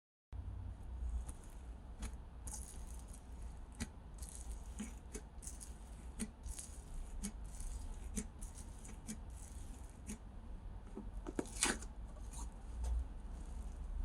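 Slime being squished and played with by hand, giving a steady run of small irregular clicks, pops and crackles, with one louder snap near the end.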